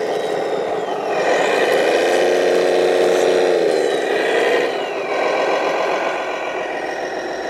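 Radio-controlled semi truck's engine sound: it revs up about a second in, holds, then drops back to a lower run about four seconds in, with a thin high whine that falls in pitch.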